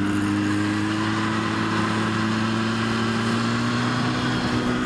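Motorcycle engine heard on board, running steadily under throttle, its pitch slowly rising as it gathers speed, with wind rushing over the microphone.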